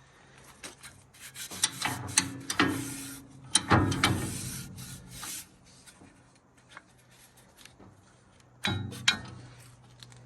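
Irregular rubbing and scraping with several sharp knocks, busiest in the first half and with two more knocks near the end: a new Wood-Mizer sawmill band blade being handled and taken out of its box.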